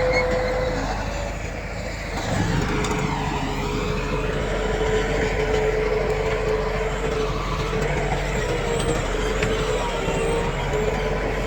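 Diesel engine of heavy earthmoving machinery running steadily, with a steady whining tone over the rumble; it eases briefly about two seconds in, then picks up again.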